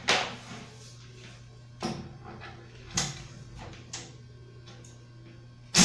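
Four sharp knocks or clatters, about a second apart, over a steady low hum, then a short, very loud burst of noise just before the end.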